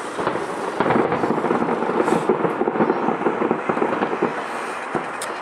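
Aerial fireworks bursting in a rapid barrage of bangs and crackles that thickens about a second in.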